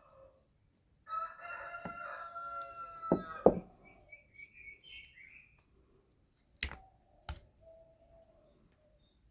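A rooster crowing once, a long call of about two and a half seconds that ends with a slight drop in pitch. Four sharp knocks are heard: two near the end of the crow, the second the loudest sound, and two more a few seconds later.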